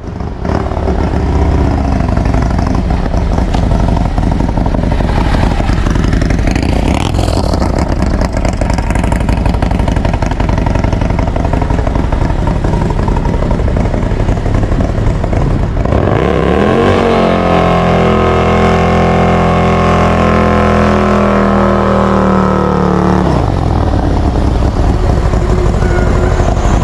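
Harley-Davidson Milwaukee-Eight V-twin engine revving hard while the rear tyre spins in a burnout. The revs climb, are held high for several seconds in the second half, then drop back. The burnout puts full load through the primary drive's billet compensator.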